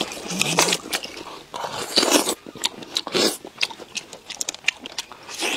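Close-miked eating: a man chewing and sucking stir-fried clams, with irregular small clicks of the shells and short slurps.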